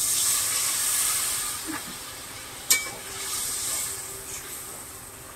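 Water poured into a hot kadai of fried spice paste, hissing and sizzling loudly at first and dying down over a few seconds. A single sharp clink comes a little under three seconds in.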